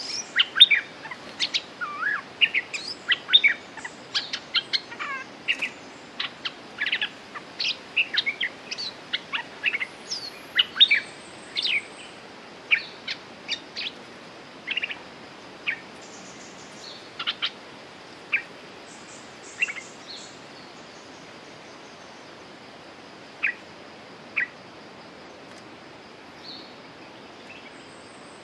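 Bulbuls calling in short chirps and whistled notes, rapid and overlapping at first, thinning to occasional single calls in the second half.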